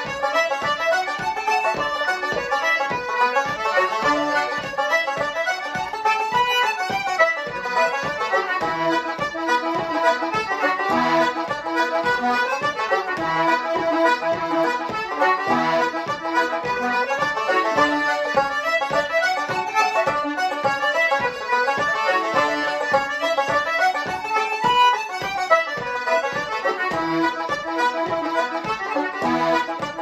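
Concertina, banjo and button accordion playing an Irish traditional dance tune together at a quick, steady pace, the accordion carrying the melody most strongly.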